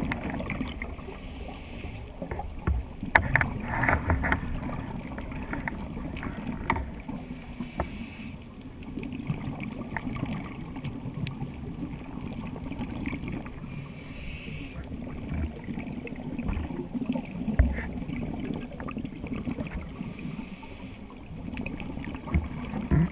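Scuba diver breathing through a regulator, heard underwater: a hissing breath about every six seconds, four in all, over a constant low bubbling and crackling.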